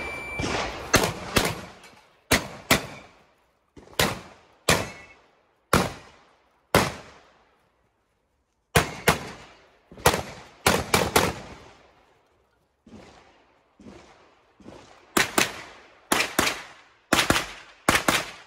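Gunfire from a practical shooting competitor running a stage: sharp shots, mostly in quick pairs and short rapid strings, each followed by a short echo. A pause of nearly two seconds comes a little past the middle, then the shooting resumes.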